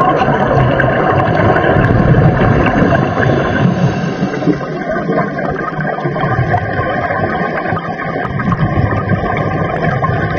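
Loud, steady underwater noise: a dense rushing rumble with gurgling, changing in character about four and a half seconds in.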